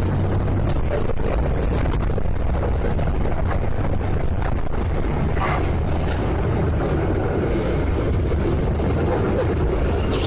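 Inside a city bus: steady engine and road rumble with a constant low hum.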